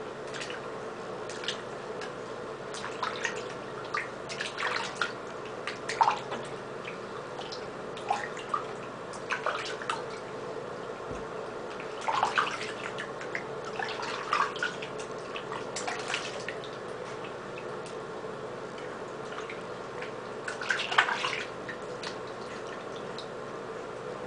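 Water splashing and dripping in a bathroom sink as hands move through warm water and over a small wet dog, in uneven splashes every second or two over a steady low hum.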